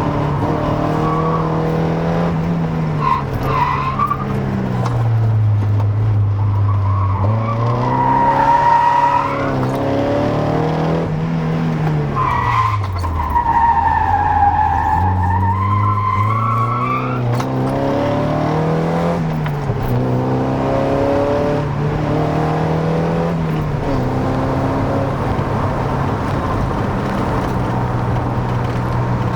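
Mazda Miata NA 1.6's four-cylinder engine running hard, its pitch dropping and climbing again several times as it slows and accelerates. Twice the tyres squeal with a wavering high whine, the second squeal longer.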